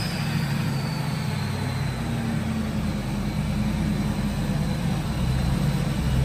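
2001 Ford Lightning's supercharged 5.4-litre V8 idling steadily while still cold from its cold start. A faint high whine eases down in pitch in the first second or so.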